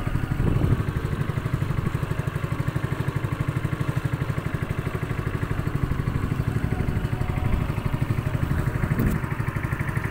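Honda GX200 single-cylinder four-stroke petrol engine driving a longtail outboard shaft, running steadily with a fast, even pulse as it pushes the boat along.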